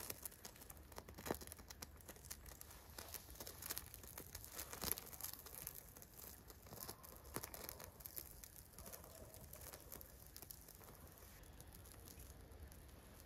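Faint, irregular crackling and rustling of tinder and small sticks at a campfire just being lit, with the clicks thickest in the first few seconds and thinning out after.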